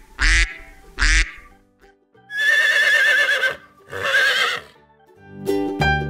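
Duck sound effect quacking twice in the first second, followed by two longer calls with a wavering pitch. Piano music starts near the end.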